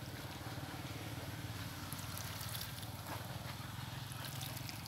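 Water trickling from the long spout of a metal watering can onto the potting mix, with scattered small drips and splashes.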